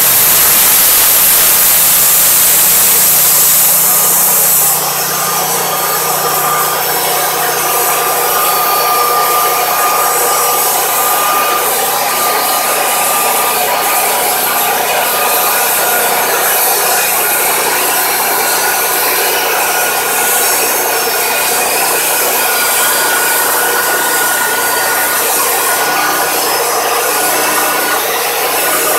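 Wood-Mizer portable band sawmill cutting a fir log: the mill's engine running under load and the band blade sawing through the wood, steady throughout. Louder, with a strong high hiss, for the first five seconds, then settling slightly.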